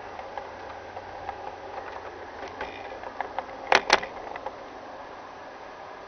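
G-scale model train running on its track, with a steady low motor hum and light wheel clicks over the rail joints. Just before the middle, two sharp loud clacks come close together as the wheels cross a set of points.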